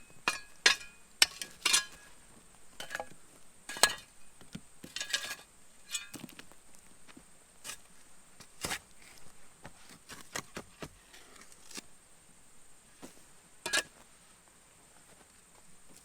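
Irregular clinks and knocks of hard, metallic-sounding objects, some with a short ring, dense in the first few seconds, then sparser, with one more loud clink near the end.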